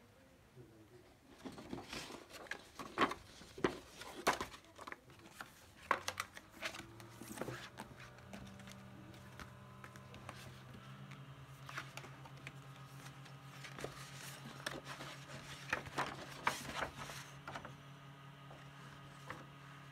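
Paper rustling and crinkling as large folded poster sheets and activity books are handled, with many short sharp crackles and taps. A low steady hum comes in about a third of the way through and holds on.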